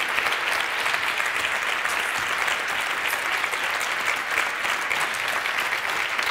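A large audience applauding steadily, many hands clapping at once, part of it a standing ovation.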